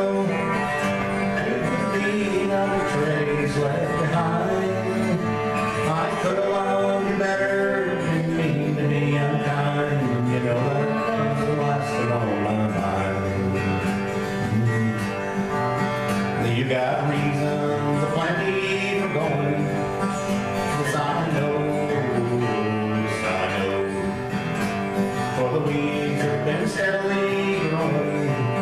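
Two acoustic guitars strummed and picked through a folk song, with a man singing.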